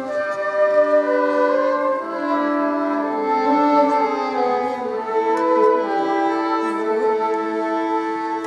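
Violin and flute duet playing slow held notes that change every second or so, the violin's tone standing out.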